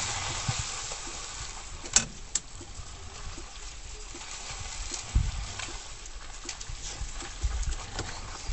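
Water splashing as a moose and wolves move through a shallow stream, over a steady outdoor hiss. Two sharp clicks come about two seconds in, and a few low thumps hit the microphone later.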